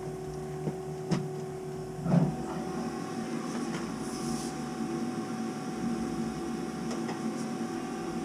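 Circulator pump of a Navien NCB-240 combi boiler running with a steady whine, worn out and struggling but still working. A couple of light knocks come about a second in, and a louder thump follows a second later.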